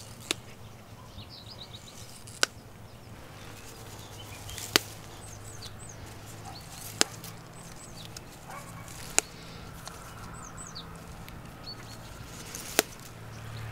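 Dandelion stems snapping as they are picked by hand: six sharp snaps, about one every two seconds. Birds chirp faintly between them.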